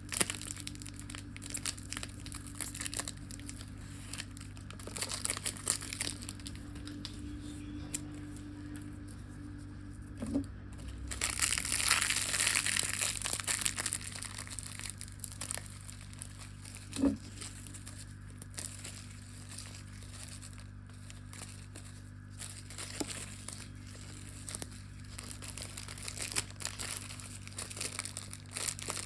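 Candy and lollipop wrappers crinkling and crackling as they are handled and opened, with a louder, denser burst of crinkling about eleven seconds in and a couple of short knocks. A steady low hum runs underneath.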